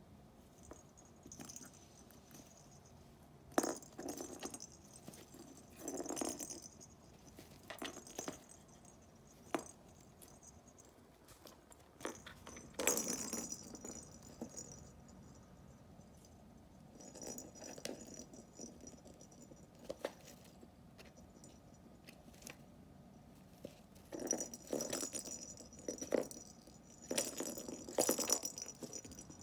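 A kitten batting toys around inside a hunting box: short bursts of rattling and jingling with pauses between, louder bursts about a dozen seconds in and again near the end.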